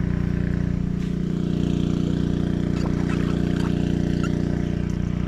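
An engine idling with a steady low drone that holds one unchanging pitch, with a few faint light clicks over it.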